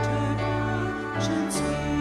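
A woman singing a slow hymn solo into a microphone, over instrumental accompaniment with long held notes and a sustained bass.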